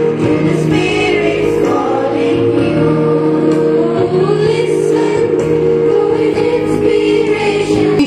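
A group of voices singing a song over steady, held instrumental chords.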